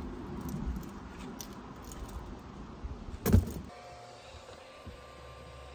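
Vacuum cleaner running as its nozzle is worked over a bass boat's deck carpet, with a scatter of small clicks from sand and debris being picked up and a sharp knock about three seconds in; the sound turns quieter and steadier shortly after.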